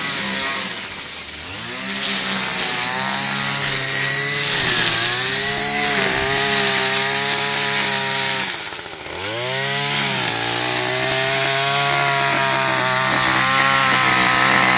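Petrol brush cutter with a line trimmer head running at high revs while cutting long grass. Its engine note drops sharply twice, about a second in and again near the middle, then climbs back up to full speed.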